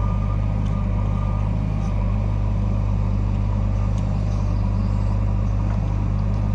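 Heavy diesel engine of the backhoe loader and tractors running steadily at a constant speed, with a deep, even low hum.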